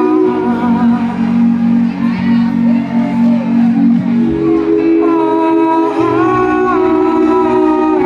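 Live reggae band playing through a hall's PA: sustained chords that shift every second or two, with a deep bass line coming in about halfway.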